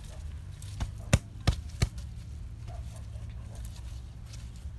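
Handling noise as a gloved hand packs coriander into a cut bamboo tube: four sharp clicks and taps about a second in, spread over roughly a second, over a steady low rumble.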